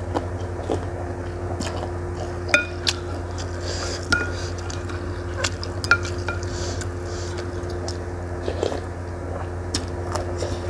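Wooden spoon and chopsticks knocking against a ceramic soup bowl, several sharp clinks with a short ringing from the bowl, between sips of broth from the spoon. A steady low hum runs underneath.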